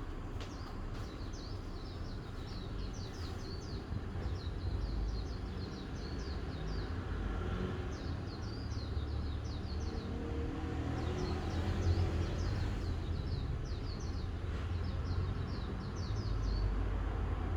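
Small songbirds chirping in quick runs of short, high notes that come and go in bouts, over a steady low rumble.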